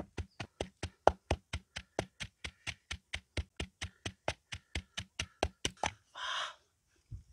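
Wooden pestle pounding chillies in a clay mortar for a spicy sauce: steady, even thuds at about four to five strokes a second. The pounding stops about six seconds in, followed by a brief hiss.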